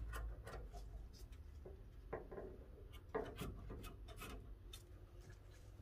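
Faint, irregular rubbing and scraping of the carpet-type wrap being pressed and smoothed by hand onto a glued van door panel, with a few soft knocks.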